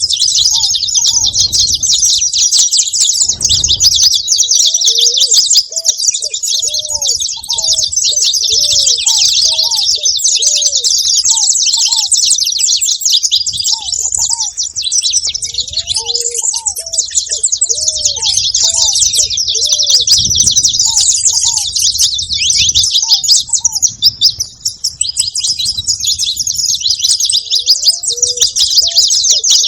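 Saffron finch singing: a long, unbroken run of fast, high twittering notes. Short, lower slurred notes repeat in the background.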